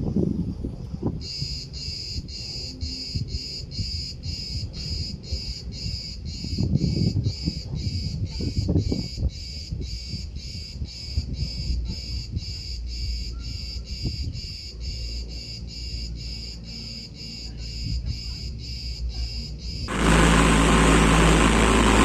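Insects chirping in an even, high pulse a little over twice a second, over a low, uneven rumble. About two seconds before the end it gives way abruptly to loud, steady engine noise heard inside an aircraft cabin.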